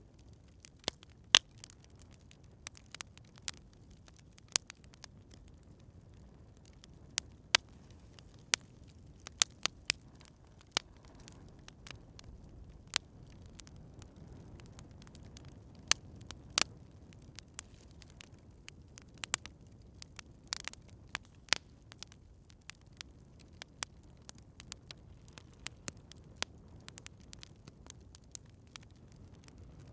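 Campfire crackling: irregular sharp pops and snaps, several a second at times, over a low steady rumble of the burning fire.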